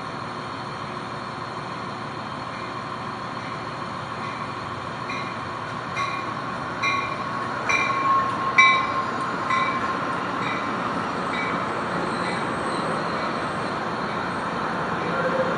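Amtrak Pacific Surfliner passenger train rolling past on the station track, a steady noise of wheels on rail. Over it a bell rings about once a second from a few seconds in until past the middle, and a thin metallic squeal rises and fades around the loudest stretch.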